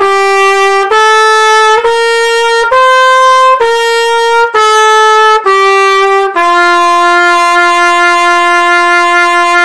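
Brass instrument playing the F mini scale, five notes of F major up and back down, one even note about every second. It ends on the home note F, held for over three seconds.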